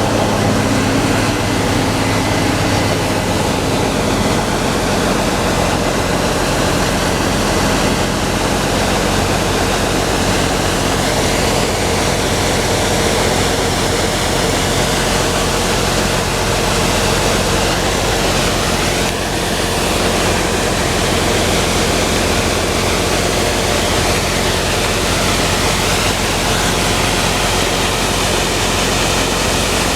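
Case IH Axial-Flow combine running steadily while threshing wheat: a loud, even rushing noise over a constant low diesel hum.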